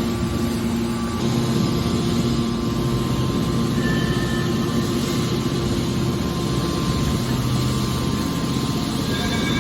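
Hydraulic aluminum can baler running, a steady machine hum with a few low tones held throughout.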